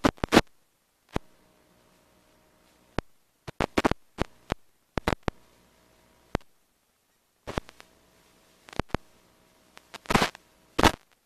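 A series of irregular sharp clicks and taps, some in quick clusters, with a louder cluster near the end, over a faint steady hum.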